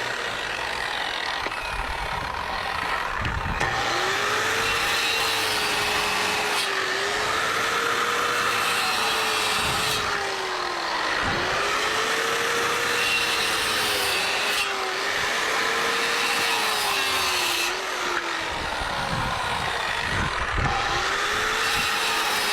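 Circular saw cutting framing lumber three times: each time the motor spins up, its pitch sags a little as it bites through the wood, then it winds down.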